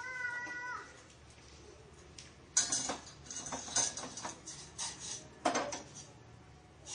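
Stainless steel pans and pan-gripper tongs clinking and knocking against each other and the gas stove's grate as a saucepan is lifted off and a frying pan set down: a run of sharp metallic clanks starting about two and a half seconds in. A brief steady pitched tone sounds in the first second.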